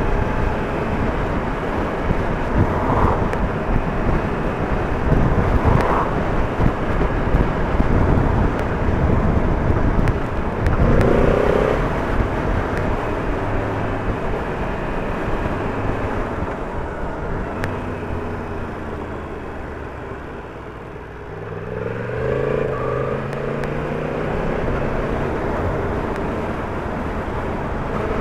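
Yamaha MT-10's inline-four engine running under way, with steady wind and road rush. About three-quarters of the way through the engine drops off and goes quieter, then its pitch rises again as it pulls away.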